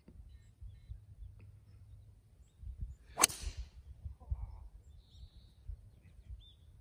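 One sharp crack of a driver striking a golf ball off the tee, a little over three seconds in, with a short fading tail.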